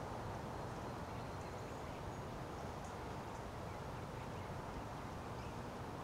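Steady outdoor background noise with a few faint, short, high chirps.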